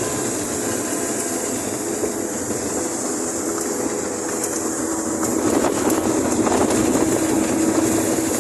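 Steady running noise of a moving vehicle, with a steady hum joining in about halfway through.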